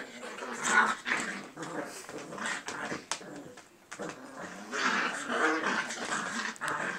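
English cocker spaniel puppies play-fighting, with puppy growls and whimpers in irregular bursts; the loudest come just before one second in and again from about five seconds in.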